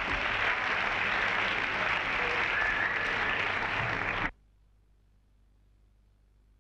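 Audience applauding, cutting off suddenly about four seconds in, followed by near silence with a faint hum.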